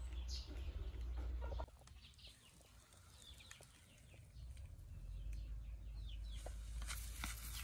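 Birds chirping in the background, short high calls scattered throughout, over a low rumble that drops away for a few seconds near the start.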